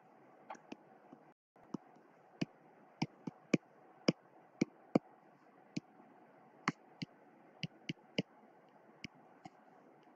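Stylus tip tapping and clicking against a tablet screen while handwriting, a string of sharp irregular clicks over a faint steady hiss.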